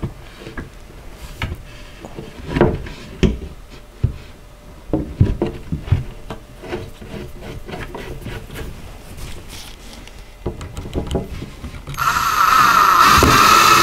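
Shelf panels being handled and fitted, with scattered knocks and rubs. About twelve seconds in, a cordless drill starts running steadily with a high whine, driving a screw up through the bottom panel into the side panel.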